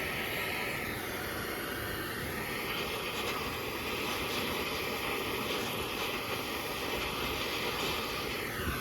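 Bernzomatic handheld torch flame hissing steadily as it is played on a rusted-in rubber control-arm bushing soaked in penetrating oil, to set the rubber burning so it melts out. The hiss swells and eases a couple of times.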